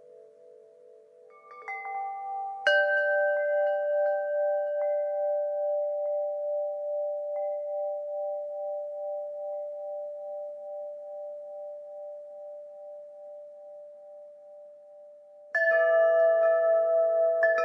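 Wind chimes ringing. A few light strikes come about two seconds in, then a strong strike whose tones ring on and slowly fade with a pulsing waver, and a fresh cluster of strikes near the end.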